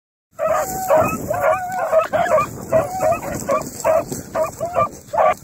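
A dog barking over and over in a quick run of short yelps mixed with longer drawn-out baying notes, about two to three a second.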